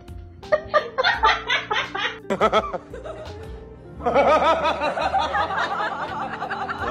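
Background music with bursts of laughter over it: a run of short, evenly paced laughs in the first couple of seconds, then louder, continuous laughter from about four seconds in.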